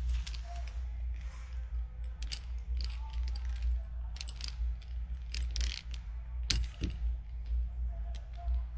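Scattered sharp clicks and light clatter of small hard parts being handled, over a steady low hum.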